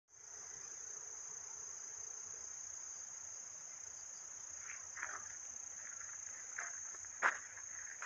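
A steady, high-pitched insect chorus of the kind autumn crickets make. From about halfway in come a few footsteps, the loudest a sharp knock near the end.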